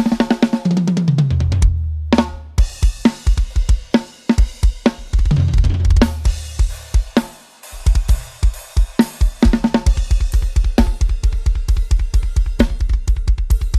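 Inexpensive drum kit played, multitrack-recorded and mixed: tom fills falling from high to low toms, a short break about two seconds in, then fast, even bass drum strokes under cymbals and snare from about eight seconds in.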